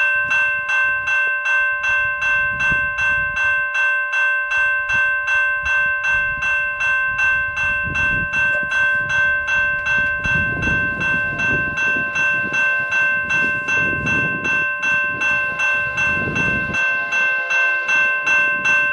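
Railway level-crossing warning bell ringing steadily at about two strikes a second, signalling that a train is approaching the crossing.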